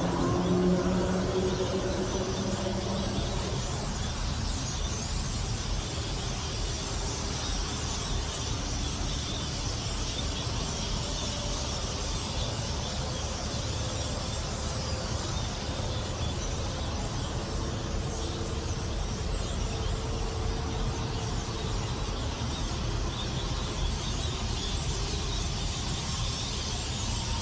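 A very large flock of birds calling all at once in a dense, steady din of chatter, over a steady low rumble.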